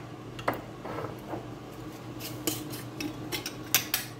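A metal spoon stirring a thick soy and oyster sauce mixture in a bowl, clinking and scraping against the bowl, with irregular taps that come more often in the second half.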